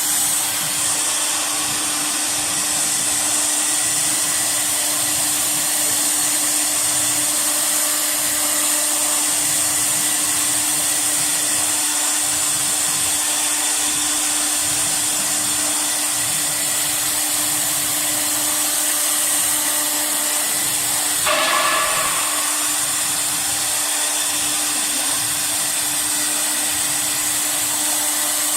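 Air-cooled spindle of a wood CNC router running steadily while carving MDF: a continuous fan-like whir with a strong high hiss and a steady hum. A brief, slightly louder sound comes about twenty-one seconds in.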